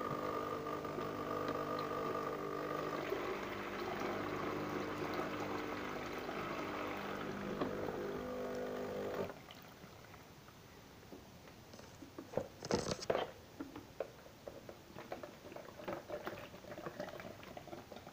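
A steady electric hum from a switched-on appliance stops abruptly about nine seconds in. After it come scattered light clicks and knocks of handling, with one brief rustle a few seconds later.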